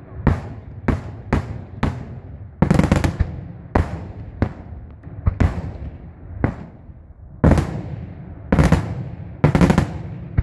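Daytime fireworks display: aerial shells bursting in a rapid, uneven series of more than a dozen loud bangs, each trailing off in a rumbling echo, with a quick cluster of bursts about three seconds in.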